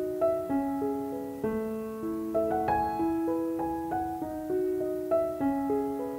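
Background music: solo piano playing a melody of held, overlapping notes, with a new note about every half second.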